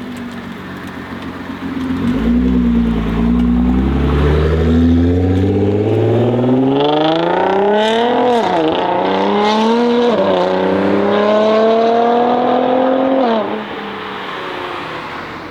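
Tuned Nissan GT-R R35's twin-turbo V6 accelerating hard, its note climbing steadily in pitch, with two quick upshifts about halfway through, then the driver lifts off near the end.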